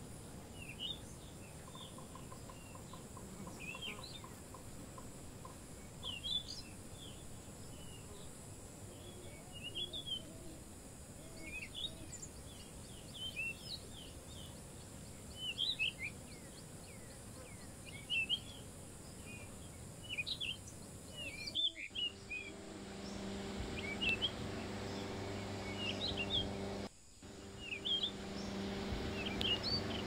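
Birds calling over and over in short chirps that slide up and down, one or two every second or two, over a faint steady background. About two-thirds of the way in, a boat engine's steady low hum joins them.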